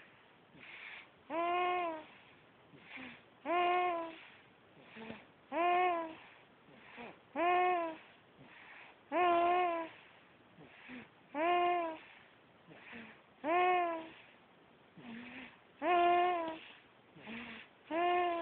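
Baby snoring: a short, pitched, hum-like snore on each breath, about one every two seconds, with a softer breathy sound between them.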